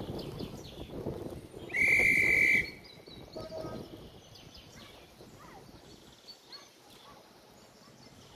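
A miniature railway locomotive sounds one short, high whistle blast about two seconds in, over the low rumble of the train on the track. Faint short chirps follow.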